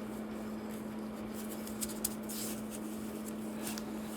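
Faint metallic clicks and scrapes of a wrench working a seized exhaust bolt on a Lotus 907 engine, with two small ticks about two seconds in, over a steady low hum.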